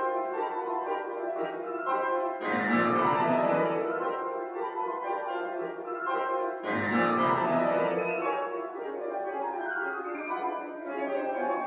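Two grand pianos playing a fast classical duo passage. Twice, about two and a half and six and a half seconds in, both come in loud with deep bass notes and a run that falls in pitch.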